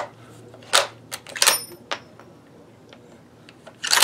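Several sharp metallic clicks and clacks as the bolt and cartridges of a Winchester Model 670 bolt-action rifle are worked by hand. The loudest click comes near the end.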